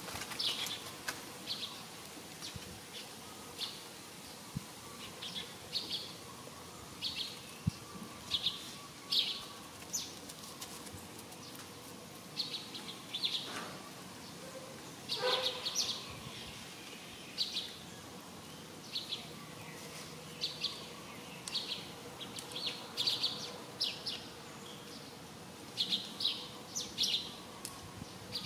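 Small birds chirping: short, high chirps repeated every second or so, with two brief falling calls near the middle.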